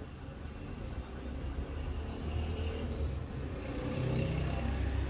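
A motor vehicle engine running, with a low rumble that gets louder over the second half.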